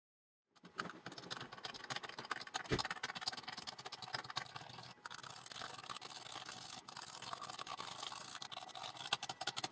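Metal toggle switches on a bare aluminium computer front panel being flicked in quick succession, a dense run of clicks, with a duller knock about three seconds in.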